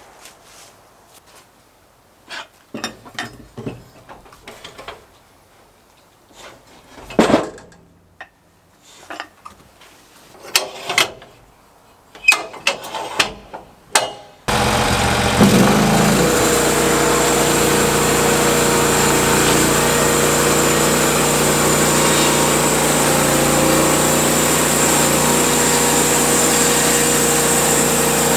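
Scattered knocks, clicks and thumps of wood being handled, then about halfway through the sawmill's engine comes in suddenly and runs steadily.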